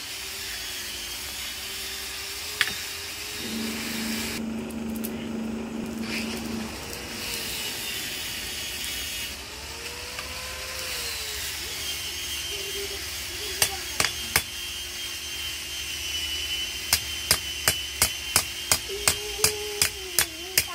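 Forge air blower running with a steady hiss, with a few single sharp knocks. From about three-quarters of the way through, a hand hammer strikes a red-hot steel wangkil blade on an anvil in quick, even blows, about two a second, bending and shaping the blade.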